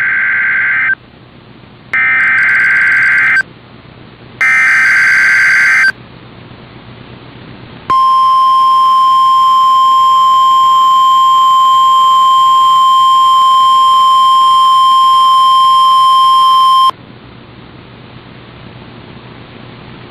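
NOAA Weather Radio Emergency Alert System weekly test. Three short bursts of SAME digital header data sound as a harsh warbling screech, each about a second long with a second's gap between. After a pause the steady 1050 Hz warning alarm tone sounds for about nine seconds and cuts off suddenly.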